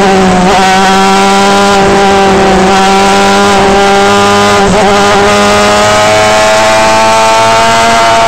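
Star Mazda race car's Mazda rotary engine heard onboard, running near flat out at a nearly steady high pitch. The pitch wavers briefly about half a second in and again near the middle, then climbs slowly as the car accelerates.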